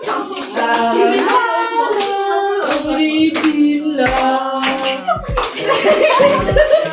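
Several people singing a birthday song together, with hands clapping along throughout.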